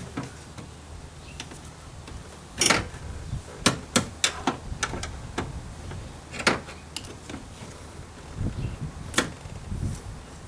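Scattered sharp clicks and taps from hand work on a car's interior door handle assembly and its locking rod, from plastic parts and a tool knocking as the rod is worked into place. The clicks come irregularly, several in quick succession in the middle, with duller handling knocks near the end.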